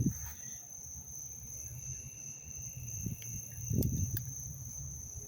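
Night insects, crickets or katydids, keep up a steady high-pitched trill. A second, lower trill joins in after a couple of seconds. Low bumps and a few sharp clicks of handling come around four seconds in.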